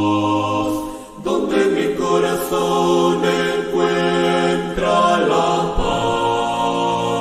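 Group worship singing over sustained chords, changing to a new chord about a second in.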